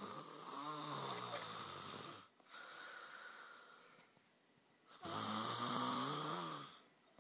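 A child snoring loudly: two long snores about five seconds apart, each with a wavering pitch, and a softer breath between them.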